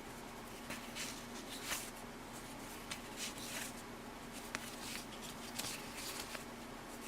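Soft rustling and light ticks of 1984 Topps cardboard hockey cards being handled and flipped through one by one, over a faint steady hum.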